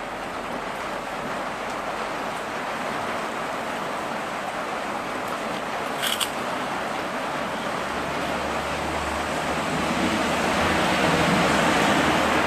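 Steady rushing noise of a moving vehicle, with a low engine hum coming in about eight seconds in and the noise growing louder toward the end; a brief click about six seconds in.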